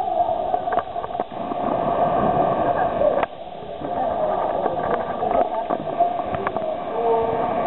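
Crowd noise echoing in a sports hall: overlapping voices and shouts with a few sharp knocks. The noise drops suddenly a little over three seconds in, then picks up again.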